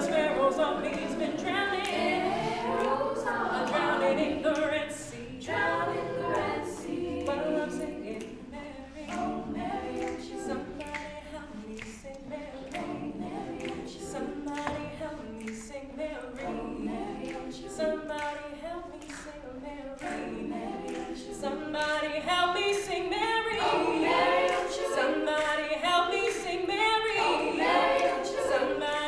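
Women's a cappella group singing: a female soloist over the group's sung backing harmonies, with no instruments. The singing eases off through the middle and builds louder again about three-quarters of the way in.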